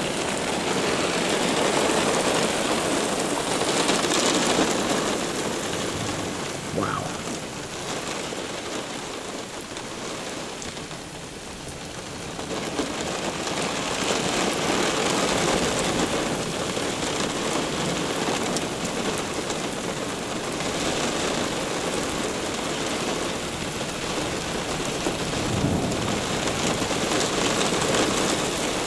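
Heavy thunderstorm rain falling on pavement, a steady hiss that eases about eight seconds in and swells back up a few seconds later.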